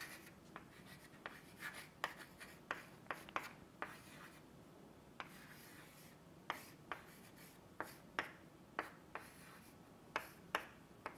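Chalk writing on a blackboard: faint, irregular taps and short scratches, a few a second, as an equation is written out stroke by stroke.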